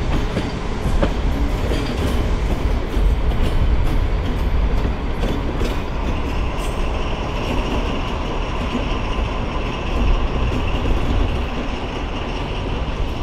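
Two coupled SNCF BB 67400-family diesel locomotives running light at low speed, their engines rumbling steadily, with scattered clicks of wheels passing over rail joints and points.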